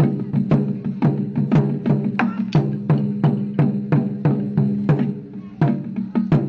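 Barrel-shaped taiko drums struck with sticks in a steady, driving rhythm of about four strokes a second, each stroke a deep drum tone with a sharp attack. The playing eases briefly near the end, then picks up again.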